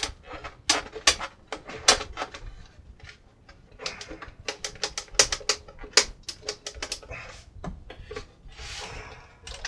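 Irregular clicks, taps and knocks of hands and tools working the chassis out of a table radio's plastic cabinet, with a short scrape near the end.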